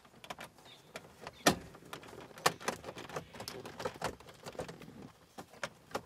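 1998 Toyota Tacoma's plastic dashboard trim panel around the ignition cylinder being pried loose by hand: a run of irregular plastic clicks and knocks, the loudest about a second and a half in and again a second later.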